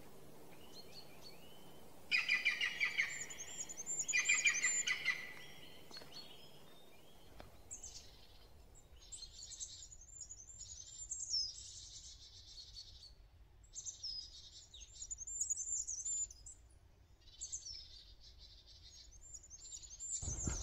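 Small songbirds calling: two loud bursts of chirping about two and four seconds in, then quieter, high-pitched twittering in short phrases through the rest.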